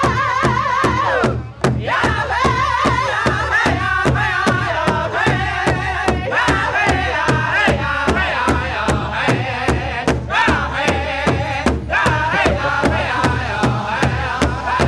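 Powwow drum group: several men singing in high, wavering voices over one large shared hand drum struck in a steady beat, about three beats a second. The singing breaks off briefly twice while the drumbeat carries on.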